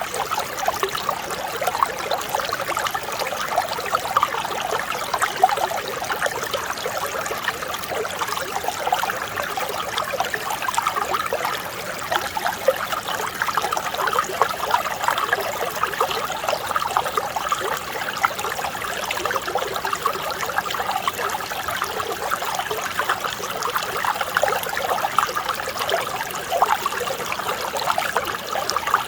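Mountain stream flowing steadily, a gentle, even babble of water.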